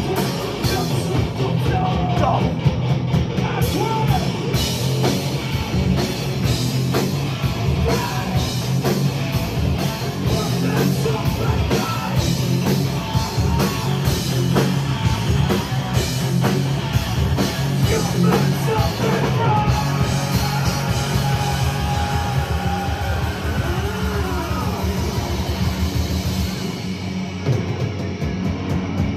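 Heavy metal band playing live: distorted electric guitars, bass and a drum kit, with a vocalist singing and yelling over them.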